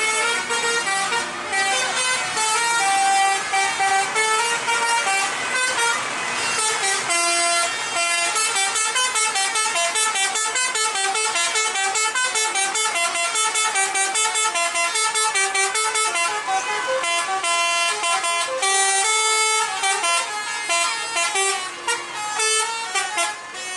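Basuri telolet multi-tone horns on several tour buses, sounding one after another and over each other without a break. The notes change quickly, making overlapping, tune-like horn calls.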